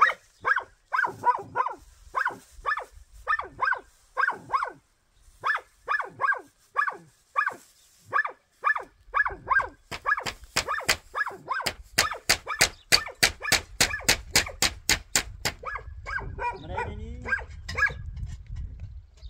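A dog barking over and over, about two barks a second at first. From about ten seconds in the barks come faster and sharper, about five a second, then loosen again near the end.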